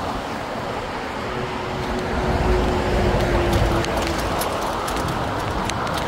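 Steady road traffic from a busy main road, with vehicles rumbling past. One passing vehicle holds a steady hum for a few seconds in the middle.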